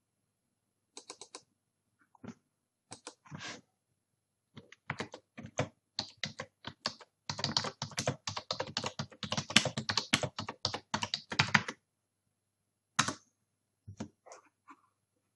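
Computer keyboard typing a filename: a dense run of quick keystrokes lasting about seven seconds. A few separate clicks come before it and two more near the end.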